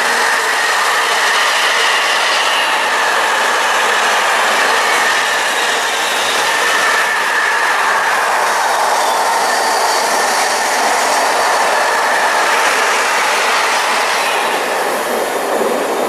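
Freight wagons of a container train rolling past: a steady loud rush of steel wheels on rail with a thin, high, steady wheel squeal over it, easing off as the last wagon clears near the end.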